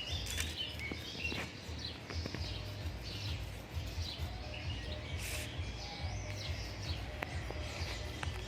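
Several birds chirping and singing, with many short, overlapping calls and trills over a steady low rumble.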